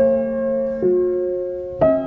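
Background piano music: calm single notes struck about once a second, each left to ring.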